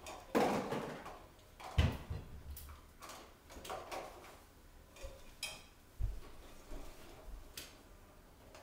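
Dishes and cutlery clinking and clattering while a dishwasher is unloaded, with a few heavier knocks, the loudest about two seconds in.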